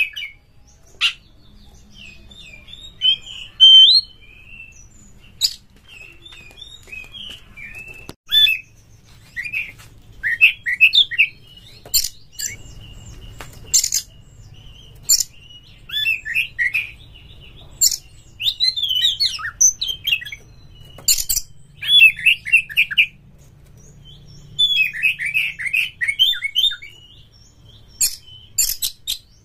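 Oriental magpie-robin singing in bursts of rapid, varied whistled and chattering phrases with short pauses between them.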